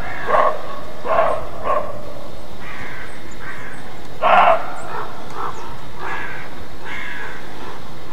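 Roe deer barking: a series of short, harsh, dog-like barks, the loudest about four seconds in, with fainter calls in between.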